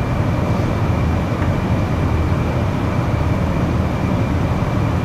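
Steady, loud background noise with no speech: a low rumbling hiss with a faint, steady high-pitched whine running under it, like a fan or air-conditioning unit close to the microphone.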